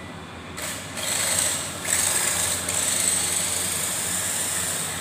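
Radio-controlled drift car running on hard drift tyres across a tiled floor: a steady motor whir with a high whine, mixed with tyre scrub on the tiles. It starts about half a second in and gets louder about a second in.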